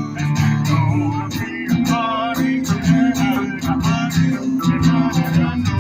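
Live band playing a song: strummed guitars over a bass line, with a steady beat.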